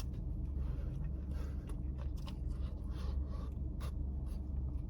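Close-up chewing of a bite of crispy fried chicken sandwich: scattered short crunches and wet mouth clicks over a steady low hum.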